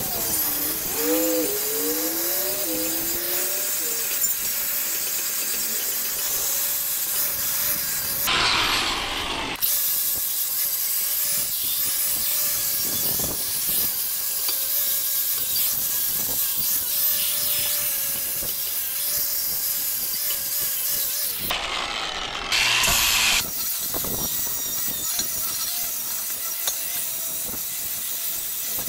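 Cordless angle grinder with a flap disc grinding rust off a steel frame: the hiss of the abrasive on metal over the motor's whine. The pitch sags and recovers several times in the first few seconds as the disc is pressed in, then holds steady. The sound changes abruptly twice.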